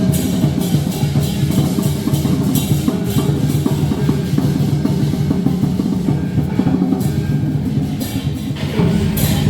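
Lion dance percussion: a big drum beating with cymbal crashes over it. The crashes thin out midway and come back near the end.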